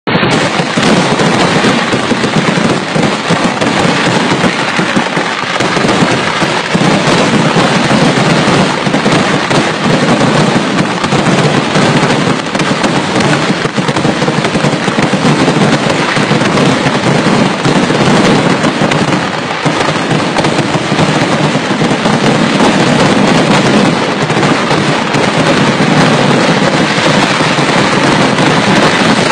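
Kerala temple-festival fireworks (vedikettu): a loud, continuous barrage of firecracker blasts, so dense that the bangs merge into one unbroken din.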